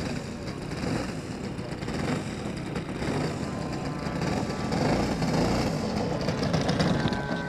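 Radio-controlled model airplane's engine running as the plane comes in on the runway, growing louder as it nears, with wind buffeting the microphone.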